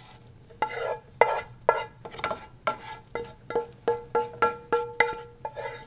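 Wooden spoon stirring a thick gorgonzola cream sauce and penne in a metal pot. It knocks against the pot two or three times a second, and each knock leaves the pot ringing briefly.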